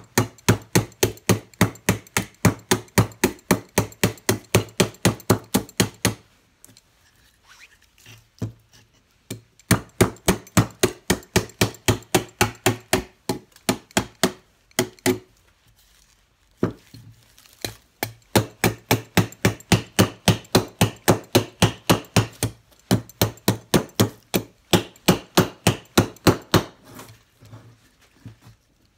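Ka-Bar knife blade chopping into a bark-stripped wooden limb, fast repeated strikes about four a second. The strikes come in runs broken by a few short pauses, the longest about a third of the way in.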